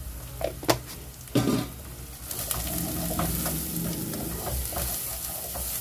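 Chopped onions and curry powder frying in a pot, sizzling steadily as a wooden spoon stirs and scrapes them. A couple of sharp knocks come in the first second and a half.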